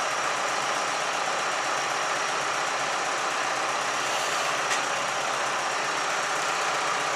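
Large outdoor bonfire burning with a steady rushing noise, with a single sharp crackle about two-thirds of the way through.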